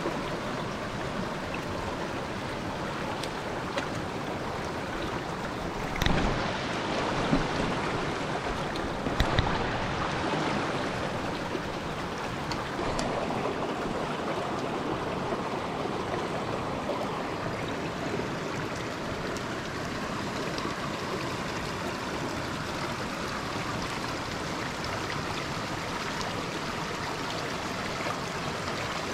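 Steady rushing of a shallow mountain stream running over stones, with a few short knocks about six and nine seconds in.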